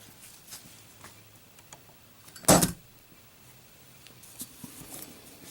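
A lit Zippo lighter dropped, hitting the surface with one short, sharp clatter about two and a half seconds in, then a few faint clicks. It stays lit, passing the drop test.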